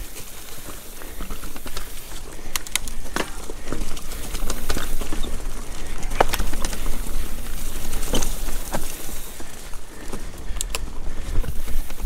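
Mountain bike rattling over rocks and roots: many sharp knocks and clatters from tyres and bike hitting rock, over a steady low wind rumble on the camera's microphone. It gets louder from about four seconds in.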